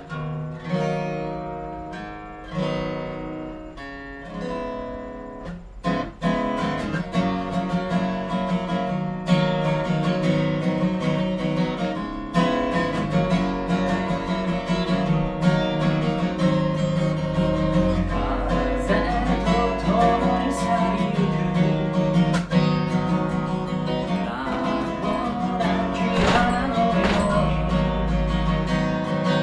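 Solo acoustic guitar starting a song: a few slow chords left ringing, then steady strumming from about six seconds in.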